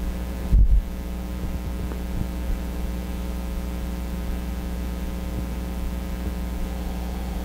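Steady low electrical hum, with a brief dull low thump about half a second in.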